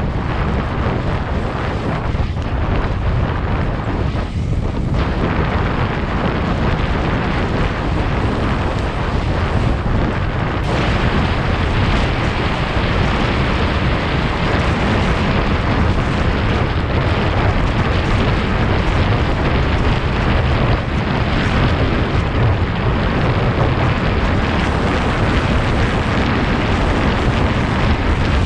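Heavy wind buffeting on the microphone of a camera carried on a galloping racehorse, a loud, steady rumble with no let-up.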